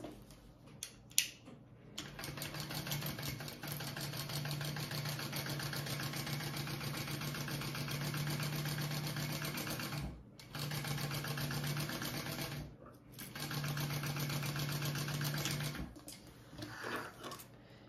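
Kingmax GC0302 industrial sewing machine stitching a seam, with a fast, even run of stitches. It runs steadily for about eight seconds, stops briefly, then runs twice more in shorter bursts before going quiet near the end.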